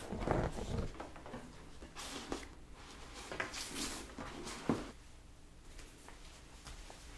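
Clear plastic tote bag crinkling and a terry beach towel rustling as the rolled towel is handled and pushed into the bag, with a short sharp tap about halfway through; the handling quietens over the last couple of seconds.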